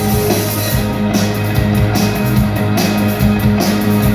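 Rock music between sung lines: an instrumental passage with guitar, bass and drums keeping a steady beat.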